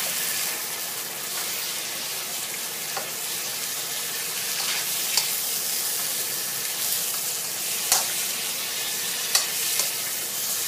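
Raw rice, pork ribs and curry paste sizzling in hot oil in a wok while a spatula stirs them, with a few sharp clicks as the spatula strikes the pan.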